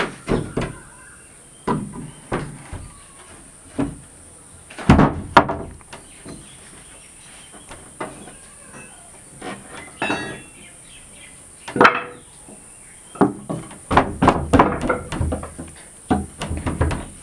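Irregular knocks and thuds on wood, single ones scattered through and a quick run of them near the end, over a steady high hiss.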